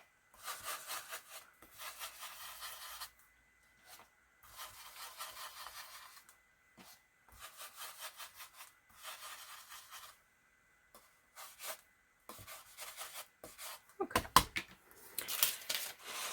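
Ink applicator rubbed across the edges of a paper cutout in repeated strokes of a second or two with short pauses between, then a few sharper, louder scrapes and taps near the end.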